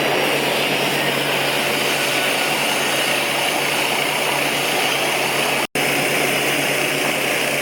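A workshop machine running steadily, a loud even drone with a low hum, broken by a split-second gap of silence near the end.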